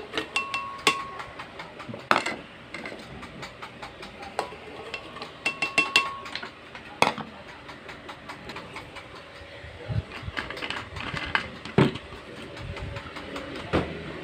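Glass blender jar and kitchen items being handled and set down: scattered clinks and knocks, with two short squeaks, one near the start and one about six seconds in. The blender motor is not running.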